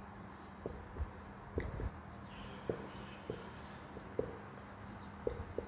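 Marker pen writing on a whiteboard: faint, irregular short taps and strokes as letters are formed.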